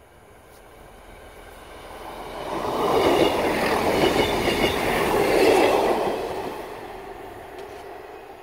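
Class 158 diesel multiple unit passing close by: its engine and wheels on the rails build up, are loudest for about three seconds as the carriages go past, then fade as it moves away.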